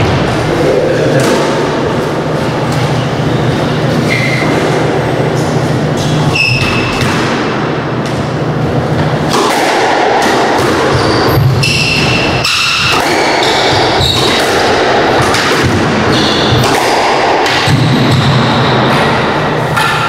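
A squash rally: the ball smacks off the walls and rackets, with short sneaker squeaks on the wooden court floor, echoing in the court over a steady low hum.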